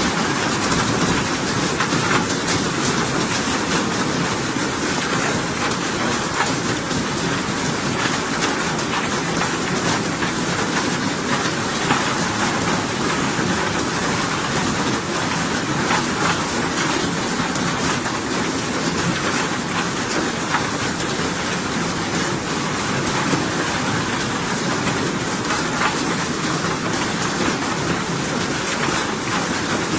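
Continuous rain used as white noise: an even, steady hiss with fine crackle of drops, unchanging throughout.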